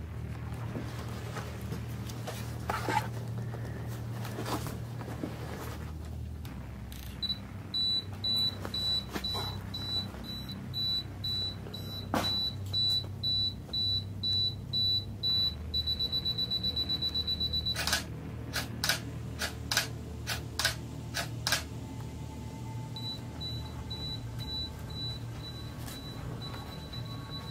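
Canon DSLR self-timer counting down: a high beep about twice a second for some eight seconds, speeding up to rapid beeping for about two seconds, then the shutter clicks, followed by a few more clicks. A fainter run of beeps comes near the end, over a steady low hum.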